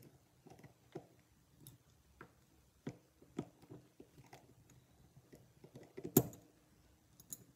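A small screwdriver backing out the cam screws on the back of an ASSA high-security mogul cylinder: scattered faint metal clicks and scrapes, with one louder click about six seconds in.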